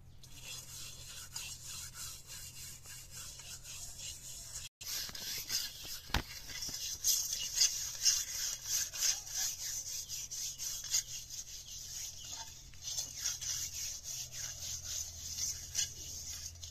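A hand scouring a metal kadai with gritty soil: quick rasping scrubbing strokes, one after another, growing louder after a short break.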